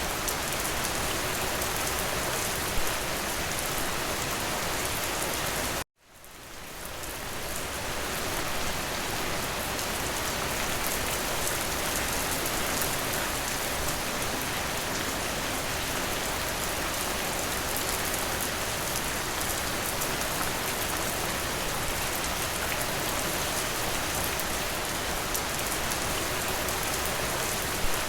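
Steady rain hitting a window: a dense, even hiss of drops. About six seconds in it cuts out abruptly to silence, then fades back in over a couple of seconds, the join of a looped recording. There is a single small tick at around three seconds.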